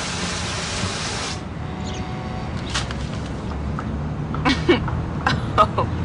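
Fire extinguisher discharging in a loud, even hiss that cuts off about a second and a half in. A low steady rumble follows, with a few brief vocal sounds near the end.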